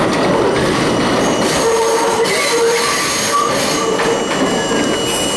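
Budd-built R32 subway car running on the track, a steady rumble with high, wavering wheel squeal that fades and returns.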